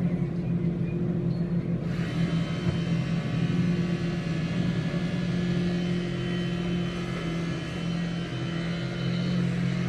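A steady low mechanical hum, like a motor or engine running without change, with an even hiss over it.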